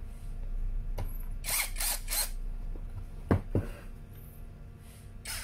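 Toyoko 16.8 V brushless cordless screwdriver given three short bursts on the trigger, starting a screw into a pine board, followed by two sharp knocks about a second later.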